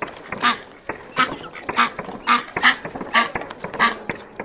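Duck quacking repeatedly, about seven short quacks roughly half a second apart, with a few sharp clicks between them.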